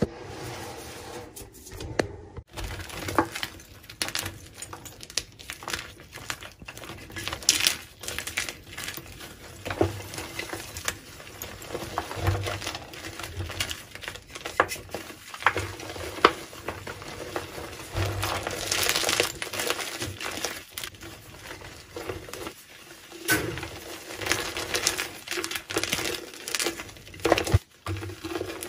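Bare hands squeezing and crumbling gym chalk: first loose powder, then reformed chalk blocks crushed in a bed of powder. The sound is irregular soft crunches and crackles, with a brief gap about two seconds in.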